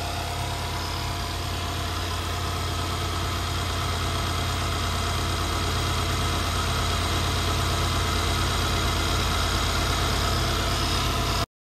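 The twin-turbocharged 4.7-litre V8 of a 2013 Mercedes-Benz SL550 idling steadily, shortly after a cold start, heard over its open engine bay.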